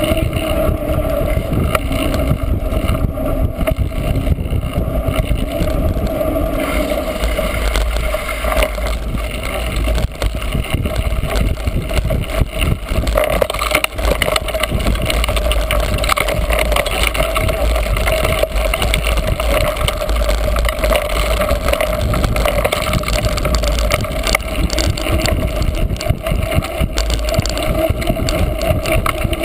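A cyclocross bike being raced over rough ground, heard from an on-board camera: a steady loud rumble of wind and vibration on the microphone, with constant small rattles and clicks from the bike.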